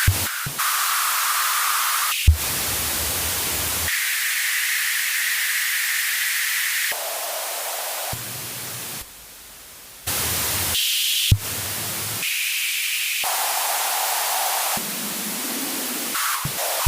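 Television no-signal static: a loud, even hiss that cuts abruptly from one stretch to the next, each stretch pitched differently. There are short low thumps about two seconds in and about eleven seconds in, and the hiss drops quieter for about a second around nine seconds.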